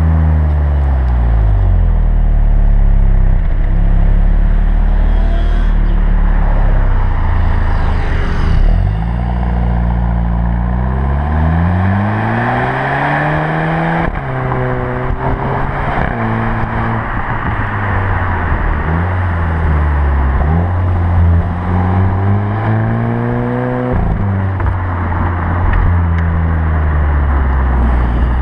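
Seat Leon SC's 1.8 TSI four-cylinder turbo engine heard at the tailpipes through an exhaust with the pre-silencer removed, warm and driving under load. The note climbs as it accelerates and drops abruptly at each quick upshift of the 7-speed DSG, several times, over steady road and wind rush.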